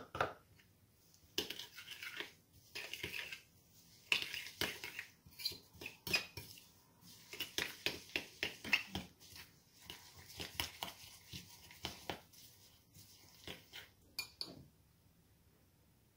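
Metal spoon stirring a wet egg, butter, sugar and coconut mixture in a mixing bowl, scraping and clinking against the bowl's sides in quick, irregular strokes that ease off near the end.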